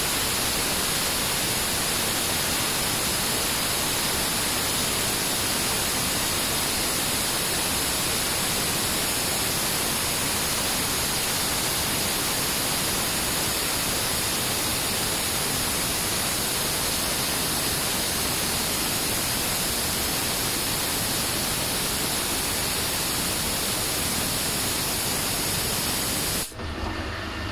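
CNC lathe cutting grip rings and square grooves into a dart barrel: a loud, steady hiss of machining with the spindle running. It cuts out sharply near the end.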